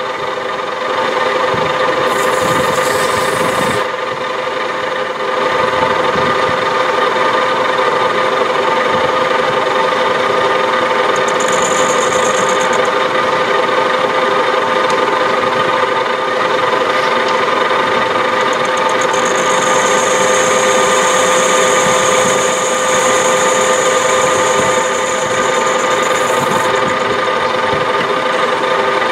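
Metal lathe running steadily while its tool faces the end of a cast aluminium blank. A higher cutting hiss comes in briefly twice and runs longer in the second half.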